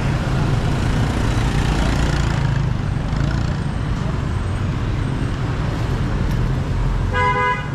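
Steady road traffic noise, engines and tyres, with one short vehicle horn honk near the end.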